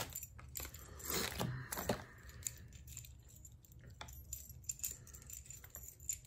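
Steel bolts clinking together in the hand as they are taken out of a plastic hardware bag: scattered light metallic clicks, with brief crinkles of the bag in the first two seconds.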